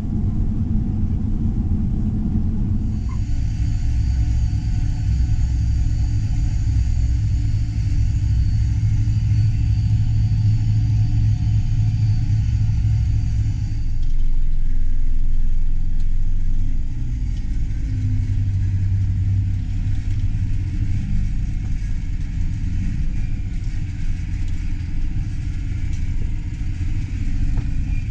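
Harvest machinery engines running with a steady low rumble. The higher part of the sound changes about three seconds in and again around fourteen seconds.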